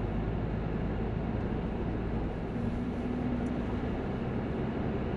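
Car driving: a steady low rumble of engine and road noise, with a faint steady hum lasting about a second midway through.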